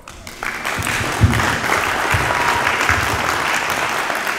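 A church congregation applauding, building up within the first half second and then holding steady.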